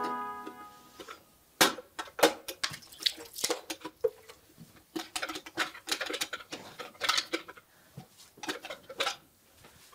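A series of short knocks, clicks and rubbing noises at a bathroom sink as a bottle is moved and the basin is wiped with a cloth. Fading music ends in the first second.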